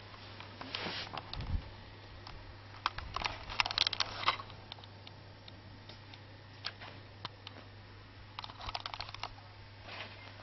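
Handling noise: several clusters of small clicks and rustles from hands moving the camcorder over the rifle and cloth, over a steady low hum.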